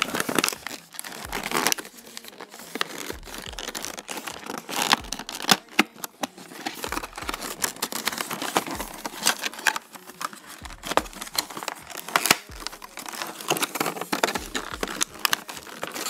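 Cardboard and clear plastic toy packaging being worked open by hand: irregular crinkling, tearing and sharp crackles, with no steady rhythm.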